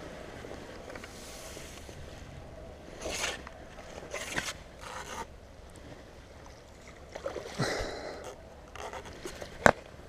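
Scraping and rustling of fishing gear being handled while a fish is netted, over the steady rush of fast river water. A sharp knock near the end is the loudest sound.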